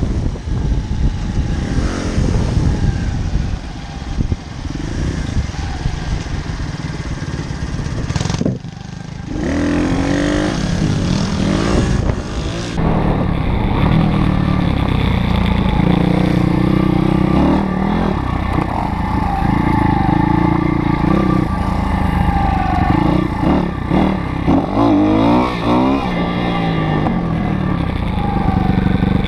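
Small single-cylinder pit bike engine on the move, revving up and falling back through the gears, with wind noise on the microphone in the first part and a brief drop in the sound about eight seconds in.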